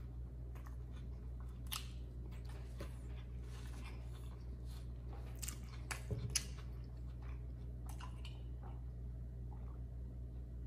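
A person chewing a mouthful of burger: wet, irregular mouth clicks and crackles, with a few louder ones around six seconds in, thinning out near the end. A steady low hum runs underneath.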